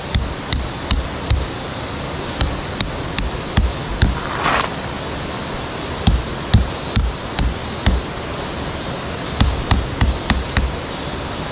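A series of sharp hammer blows, about two or three a second in short runs with brief pauses, over a steady high chorus of insects.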